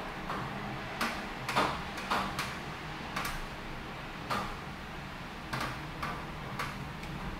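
Rain falling: a steady hiss with irregular sharp taps, about one or two a second, of raindrops striking a hard surface close by.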